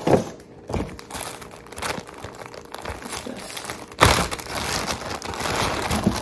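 Plastic zip-top bag crinkling and rustling as it is handled and pulled open, louder from about four seconds in.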